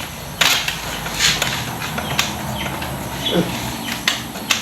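Handling noises of a chiropractic adjustment: about six short, sharp cracks or rustles spaced roughly a second apart.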